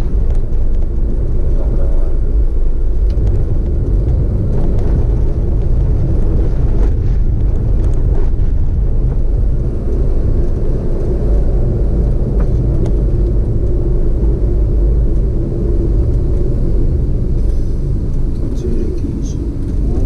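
A car driving along a paved road, heard from on board: a steady, loud low rumble of engine and tyre noise.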